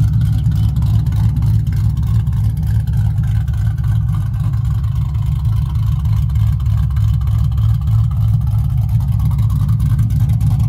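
Newly installed Ford 4.6 L three-valve V8 in a Mustang GT idling steadily, heard at the tailpipes as an even, deep exhaust note.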